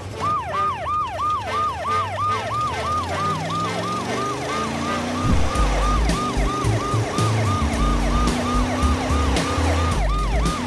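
Electronic police-style siren of a toy ride-on police truck, sounding a fast, even yelp of about three to four rising-and-falling sweeps a second. A low rumble joins about halfway through.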